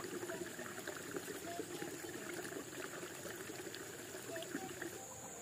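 Water trickling and running steadily, with a steady high hum and a few faint short chirps over it.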